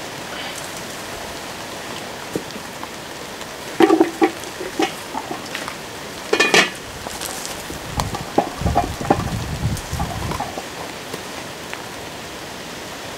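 Steady sizzling from a pan on a wood-fired brick stove, with sharp metal clinks of a ladle against the pan about four and six and a half seconds in, and a run of low dull knocks a little later.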